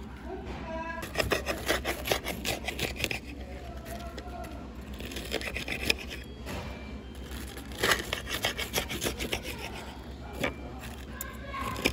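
Table knife sawing through a crisp breaded pork cutlet on a plate, in three spells of quick rasping strokes.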